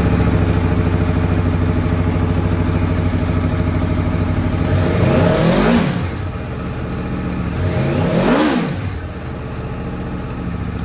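Aprilia Tuono V4 1100's V4 engine idling through its stock exhaust, blipped twice, the revs rising and falling about five and eight seconds in, then shut off right at the end. The exhaust has a racy sound.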